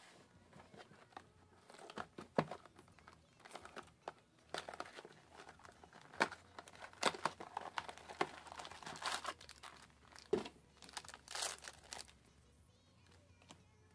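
Foil trading-card booster pack wrappers crinkling and being torn open, in a string of irregular sharp crackles.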